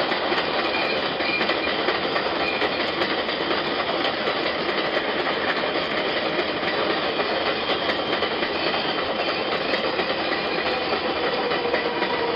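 A New York City Subway 4 train running on the Jerome Avenue elevated steel structure: a steady, even clatter of wheels on the elevated track, with faint thin wheel-squeal tones, played back through a laptop's speakers.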